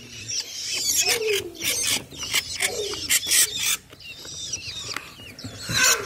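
A box of nestling songbirds, long-tailed shrike chicks among them, giving a busy chatter of short, high begging chirps and squeaks, with scratching and rustling on the paper bedding.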